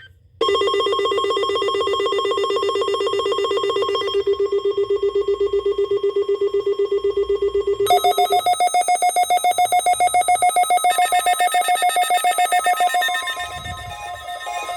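Weather radio receivers sounding their alert alarm for the weekly warning-alarm test: a rapid, fast-pulsing electronic beep. A lower-pitched beep gives way about eight seconds in to a higher-pitched one, which fades near the end.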